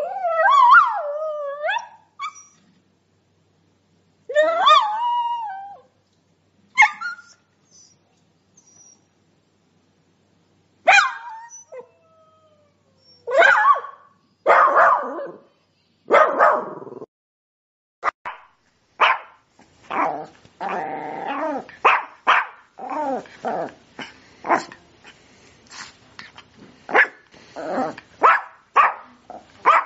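A dog barking. A few drawn-out, wavering yelps and single barks come with silent gaps between them, then past the middle a quick run of barks follows one after another.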